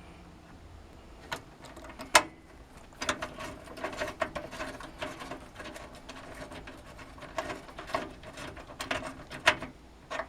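Screwdriver driving a small screw through the motherboard into a PC case standoff: an uneven run of metallic clicks and scrapes, with a couple of sharper clicks.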